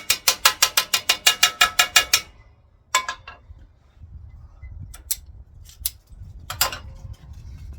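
Quick hammer blows on a sheet-steel patch panel, about six a second with a metallic ring, putting a 90-degree bend into it. They stop a little over two seconds in, followed by a few single taps and knocks.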